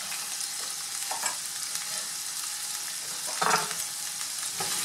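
Diced zucchini frying in olive oil in a non-stick pan, a steady sizzle. A brief louder knock comes about three and a half seconds in.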